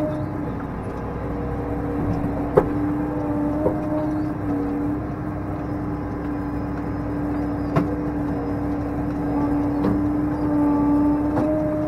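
Case IH tractor engine running steadily with a constant hum, heard from inside the closed cab as the front loader picks up a round hay bale. A few sharp knocks, the loudest about two and a half seconds in and another near eight seconds.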